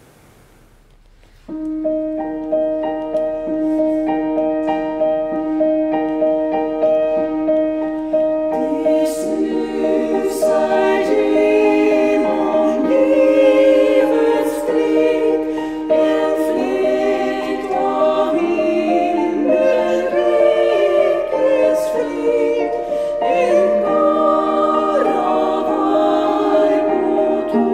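Trio of women's voices singing in harmony, accompanied on a Feurich grand piano; the music begins about a second and a half in.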